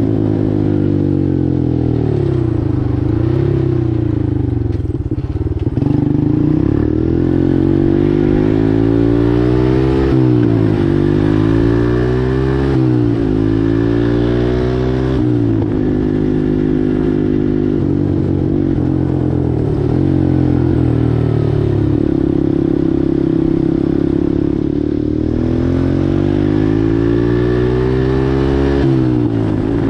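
Four-wheeler engine running under way, its pitch climbing and falling again and again as the throttle is opened and eased off, with a few sudden drops in pitch.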